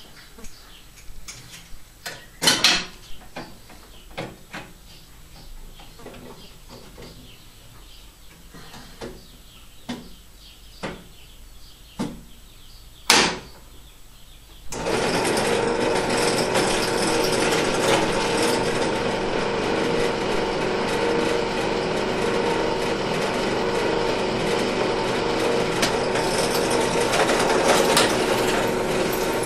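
Scattered metal knocks and clicks as parts are handled and clamped in a drill-press vise, two of them sharp and loud, then about halfway through a bench drill press switches on and runs steadily, drilling a hole into a screw held in the vise.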